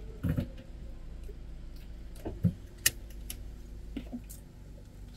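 A handful of light clicks and knocks inside a stopped car, over a low steady hum; one sharp click comes about three seconds in.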